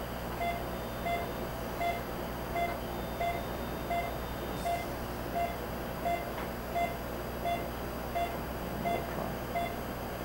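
Patient monitor's pulse oximeter beeping steadily, a short mid-pitched beep about every 0.6 seconds in time with the patient's heartbeat, over a steady hum of equipment.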